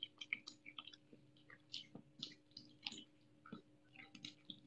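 Faint, irregular clicks and crunches of a young otter chewing on a catfish.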